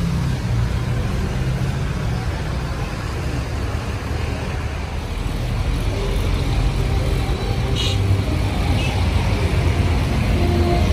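A motor vehicle engine running steadily, a low rumble, with a short hiss about eight seconds in.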